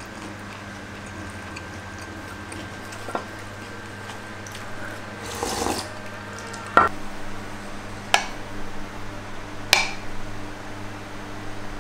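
Chopsticks and ceramic bowls clinking while people eat cold noodle soup, with a slurp of broth from a lifted bowl about halfway through and three sharp clinks of chopsticks or bowls after it, over a steady low hum.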